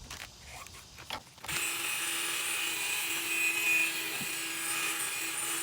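A drill spinning a foam polishing pad against a headlight lens to polish it, starting about a second and a half in and then running steadily with a constant hum under a hiss. A few light knocks come before it starts.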